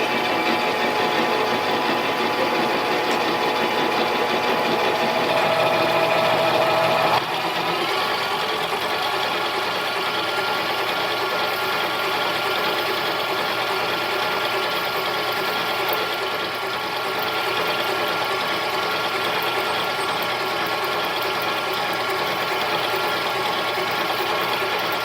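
Mini lathe running steadily with a whine from its motor and gear train while a 1/4-inch drill is fed into 6061 aluminum. A higher whine stops about seven seconds in and the sound gets a little quieter.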